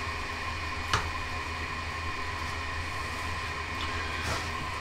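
Steady hum with a faint constant whine from the ugly drum smoker's electric blower fan, blowing air into the charcoal. A single sharp click about a second in.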